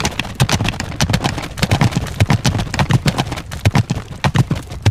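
Galloping horse hoofbeats: a fast, steady clatter of hooves.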